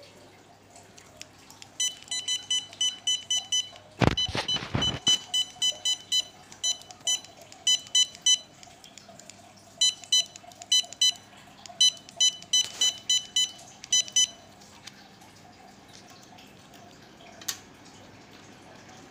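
Short high beeps in quick runs, about two or three a second, each one a good-read signal from the test setup of a Zebra SE965 1D laser scan engine as it decodes barcodes. About four seconds in there is a loud, brief rush of handling noise on the microphone.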